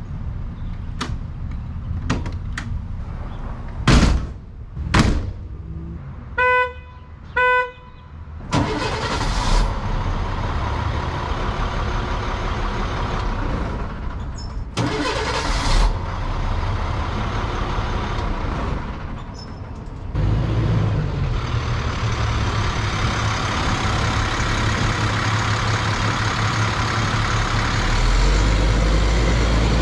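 Several sharp clicks and knocks, then two short horn honks about a second apart. After that the 2001 International armored SWAT truck's diesel engine starts and runs, turning deeper and louder about twenty seconds in.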